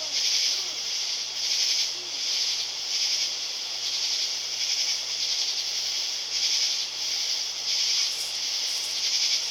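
Outdoor chorus of summer night insects, a high shrill buzzing that pulses about once a second.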